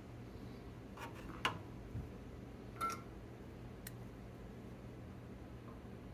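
A handful of light, separate clicks and taps from small hand tools working on a circuit board, one with a brief metallic ring, over a faint steady low hum.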